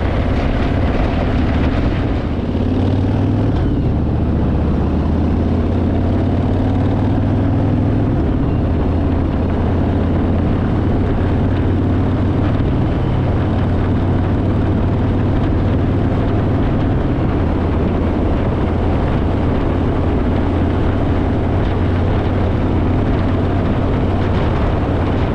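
Steady low engine drone of a moving vehicle, with a noisy rush over it; the pitch rises slightly a few seconds in, then holds even.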